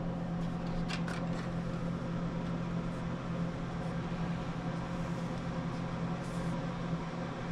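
A steady mechanical hum, even in pitch throughout, with two light clicks about a second in.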